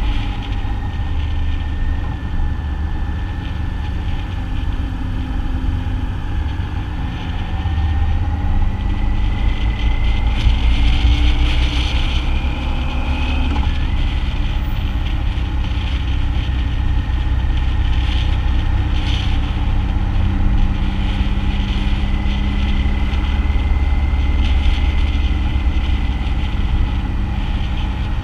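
BMW motorcycle running at town speeds, its engine under a heavy low rumble of wind on the camera microphone. A thin whine climbs slowly and drops back suddenly about halfway through.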